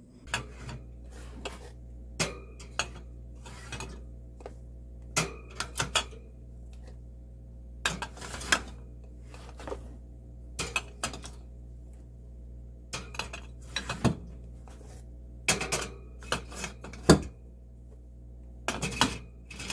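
Glass mason jars of home-canned food being handled on wire pantry shelving, clinking and knocking against each other and the shelves in irregular clanks, some in quick clusters, over a steady low hum.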